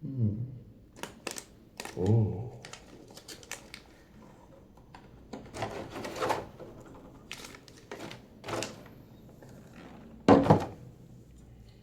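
Hard plastic transforming toy figure being handled and turned over in the hands: scattered light clicks and clacks of plastic parts, with a louder knock near the end.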